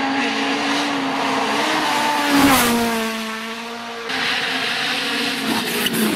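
Hyundai i20 WRC rally car's engine running hard on a gravel stage. Its note drops in pitch with a loud rush of noise as it passes, about two and a half seconds in, then fades. From about four seconds in, a rally car's engine revs up and down close by as it goes past.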